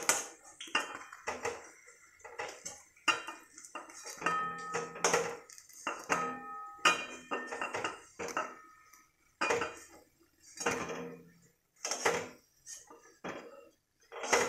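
A metal slotted spoon knocking and scraping against a kadai while fried chhena dumplings are lifted out of the oil. It makes a run of irregular clinks and scrapes, about one a second, some ringing briefly.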